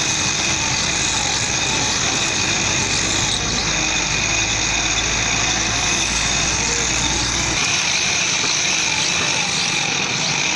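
Old knife-sharpening machine running, with a steady high whine over a low motor hum; the hum drops out about seven and a half seconds in.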